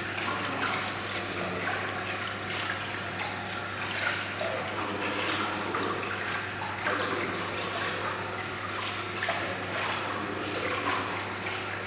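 Water cascading down a tall glass water wall: a steady, even rush of falling and splashing water, with a low steady hum underneath.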